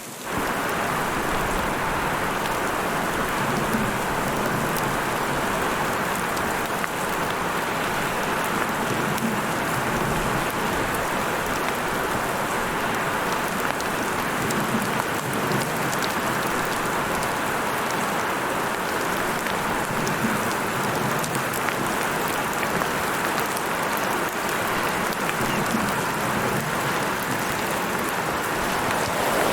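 Heavy rain pouring steadily, a dense even hiss with scattered drop ticks.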